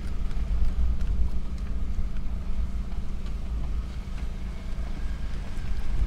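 Car driving slowly over a broken, rough road: a steady low rumble of engine and tyres with scattered small knocks from the bumps.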